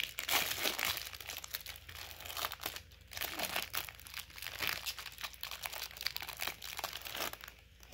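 Clear plastic shrink-wrap being peeled and torn off a stack of trading cards: a continuous crinkling and crackling of cellophane, dying down near the end.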